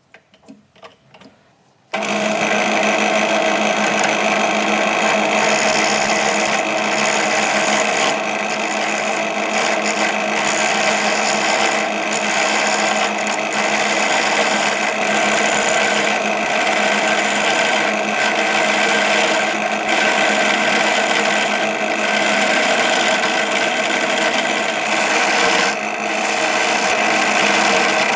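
A few light knocks as a wooden block is clamped to a drill press table, then about two seconds in the drill press starts and runs steadily while a skew chisel cuts the spinning wooden blank in its chuck, a dense hiss of cutting over the motor's hum. The cutting noise dips briefly now and then.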